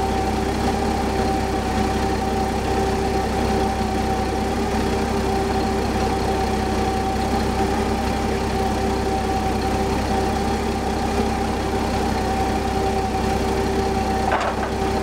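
Forklift engines idling steadily, an even hum with no change in speed. A brief higher-pitched sound comes near the end.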